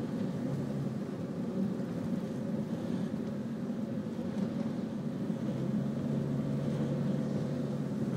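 Steady low rumble of vehicle engine and road noise, with a low engine hum growing stronger in the second half.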